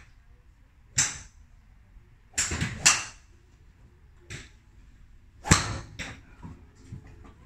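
A series of sharp cracks of golf clubs striking balls at a driving range: one about a second in, two close together around two and a half to three seconds, a softer one past four seconds. The loudest comes about five and a half seconds in: a metal-headed driver hitting a golf ball off the tee.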